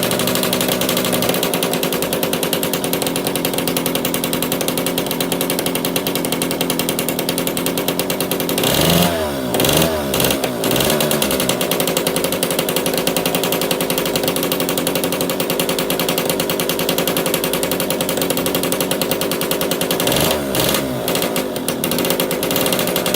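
Yamaha PW80's rebuilt two-stroke single-cylinder engine running just after being kick-started, with a fast rattling beat. It is revved twice, about nine seconds in and again about twenty seconds in, the pitch rising and falling each time.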